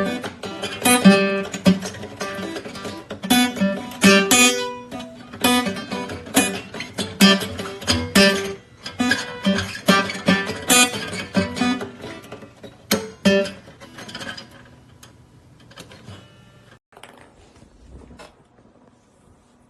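Background music of strummed guitar chords, fading out over the last few seconds.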